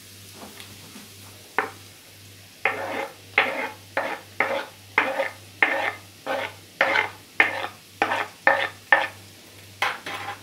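Grated carrot being moved off a wooden cutting board into a frying pan of beef and onion: a run of about a dozen short strokes at roughly two a second, starting after a single stroke, over a faint sizzle from the pan.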